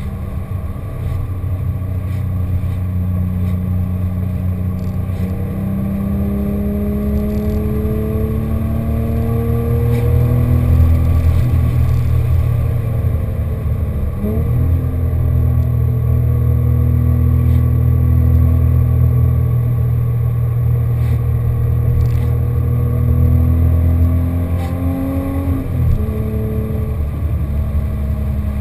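Porsche 997.1 GT3's 3.6-litre flat-six engine through a GMG World Challenge exhaust with headers and sport cats, heard from inside the cabin while cruising. The engine note climbs slowly under light throttle, dips sharply about halfway through, climbs again, and drops near the end at a gear change.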